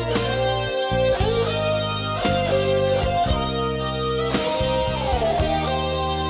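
Instrumental background music led by guitar over a bass line, with a steady beat.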